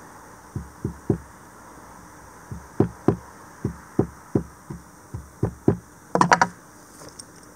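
A hammer taps in a series of dull knocks, about fifteen strikes in uneven groups, ending in a quick, brighter flurry near the end. It is pounding a rope's end into a point so the rope will thread through holes.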